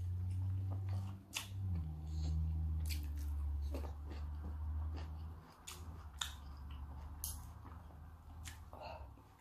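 Close-miked chewing of raw salmon sashimi: soft wet mouth clicks and smacks, scattered and irregular. A low hum runs underneath, fading to a weaker level about halfway through.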